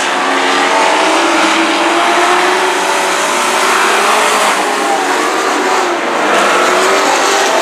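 Several dirt-track race trucks running at speed in a pack, their overlapping engine notes rising and falling slightly as they pass and work through the turns.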